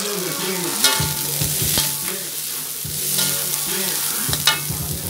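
Crickets sizzling as they stir-fry in a metal wok, with a metal spatula scraping and knocking against the pan a few times.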